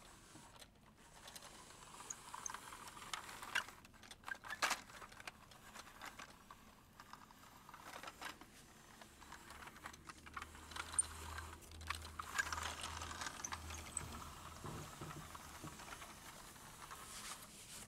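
Faint, scattered plastic clicks and rattles as a Hot Wheels Blastin' Rig toy car hauler, loaded with die-cast cars, is pushed and rolled by hand across carpet.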